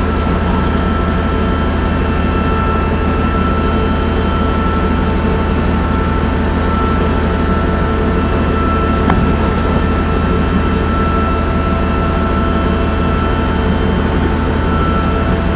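Steady machinery drone aboard a ship: a low hum with several steady high whining tones over it, and a single click about nine seconds in.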